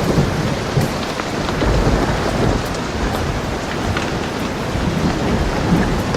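Steady rain falling, with a low rumble of thunder underneath that swells about two seconds in.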